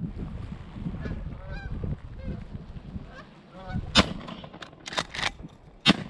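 Canada geese honking overhead, then two shotgun blasts from a Remington 870 about two seconds apart, with two fainter sharp clicks between them.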